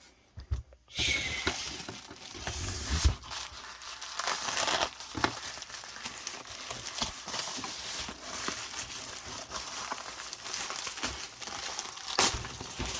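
Packaging crinkling and rustling with many small clicks as parts are unwrapped by hand; it starts about a second in and goes on without a break.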